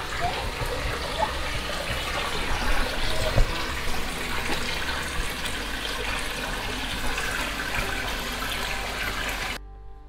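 Mountain creek water rushing and splashing over rocks, a steady noise. It cuts off suddenly near the end, where acoustic guitar music begins.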